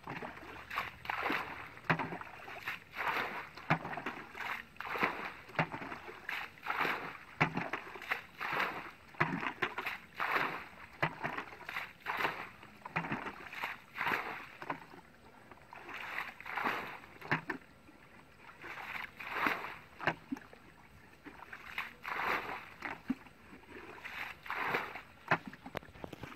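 A plastic jug scooping water from a shallow muddy ditch and flinging it out, a splash and slosh about once or twice a second as the ditch is bailed out to get at the fish. There is a short pause about halfway through.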